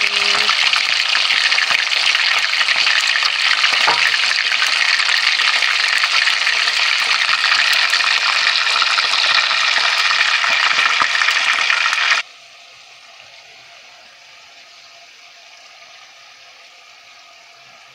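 Chunks of liver frying in hot oil on high heat, a loud steady sizzle that drops abruptly about twelve seconds in to a much fainter hiss.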